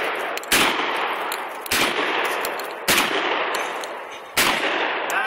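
Shotgun firing four shots about a second and a quarter to a second and a half apart, each a sharp crack followed by a long echo that dies away.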